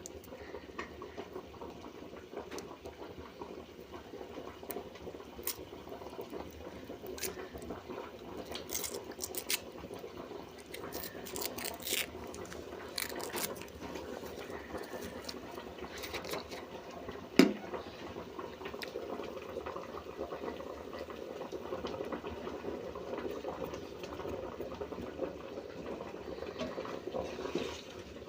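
Pot of chicken soup boiling, a steady bubbling with scattered small clicks and one sharp knock about two-thirds of the way through.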